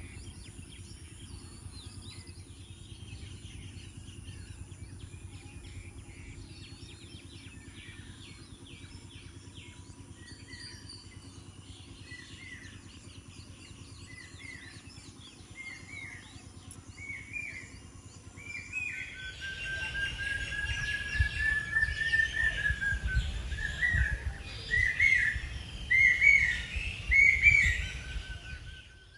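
Several birds chirping and calling, with one bird repeating a short rising call about once a second. The calls grow much louder about two-thirds of the way in, together with a long rising whistle and low rumbling noise.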